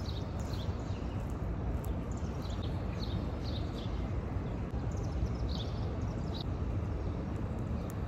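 Outdoor street ambience: a steady low rumble with small birds chirping now and then, short high chirps scattered throughout.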